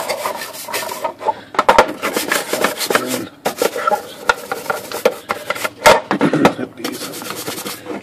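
Bristle brush scrubbing the wet, black wrinkle-finish painted lid of a Royal KMM typewriter, in quick, irregular rubbing strokes.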